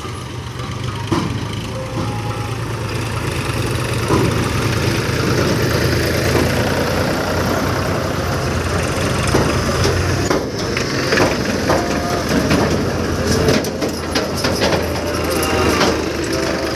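Diesel tractor engine running with a steady low drone. The drone weakens after about ten seconds, and scattered clatter follows.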